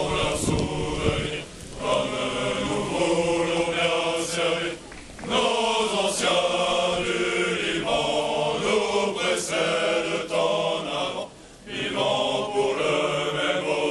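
Column of marching soldiers singing a military marching song together, many male voices in unison. The long phrases break off for short pauses three times.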